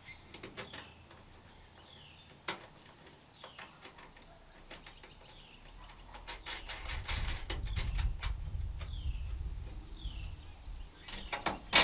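Scattered small clicks of screws and nuts being fitted by hand into a metal exhaust flange. A bird gives short falling chirps now and then, and a low rumble builds up in the second half.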